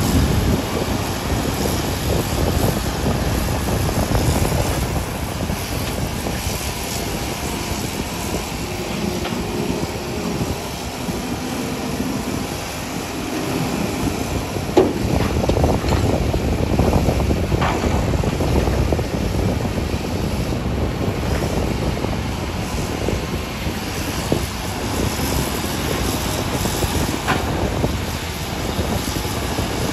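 Hydraulic excavator's diesel engine running steadily under working load while digging and loading dirt. A few sharp knocks come about halfway through and near the end.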